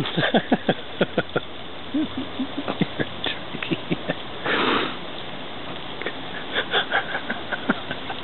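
Backyard fountain water pouring and splashing steadily into its basin. Over it come clusters of short sharp clicks and taps, with a brief rustling burst about halfway through.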